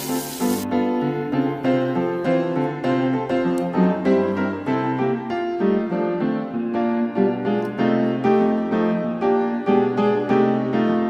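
Background piano music, a steady run of notes. For the first moment, oysters frying in oil in a pan sizzle under it, cutting off sharply under a second in.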